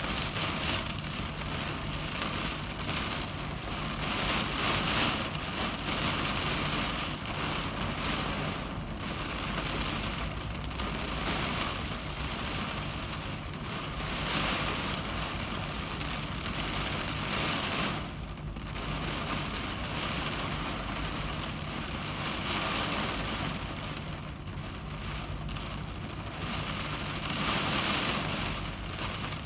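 Heavy rain drumming on a car windshield, a dense steady patter that swells and eases every few seconds, over a steady low hum.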